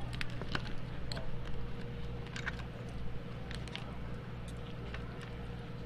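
Metal spoon and fork clinking and scraping against a grilled prawn's shell and a ceramic plate, a scatter of light clicks. Under it runs a steady low hum.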